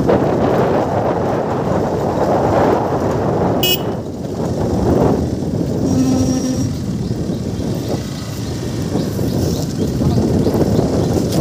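Wind buffeting the microphone as the camera moves along the road, a steady rushing noise. A short flat toot sounds about six seconds in.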